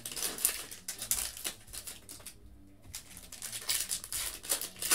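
Foil wrappers of Optic football card packs crinkling and tearing as a pack is handled and ripped open by hand: a dense run of crackles with a short lull about halfway through.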